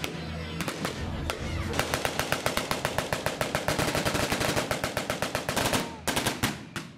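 Water-cooled Maxim machine gun firing a long, rapid, evenly paced burst that starts about two seconds in. It breaks off near the end into a few separate shots.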